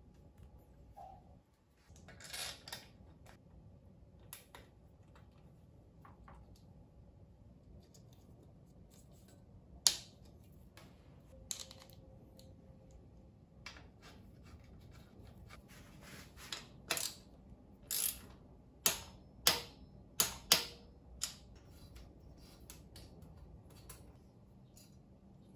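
Scattered clicks, taps and light scrapes of hands and small tools working on a bicycle frame, with a quick run of sharp clicks in the second half.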